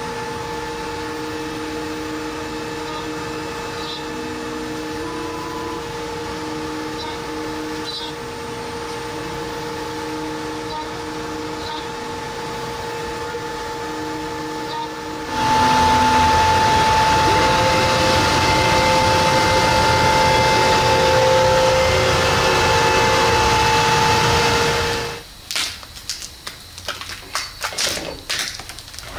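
Laguna CNC router machining a 1-inch acrylic sheet, its spindle running with a steady whine and hum. About fifteen seconds in it becomes louder and noisier, then stops suddenly about twenty-five seconds in, followed by a few knocks and clatters as the cut acrylic panel is handled.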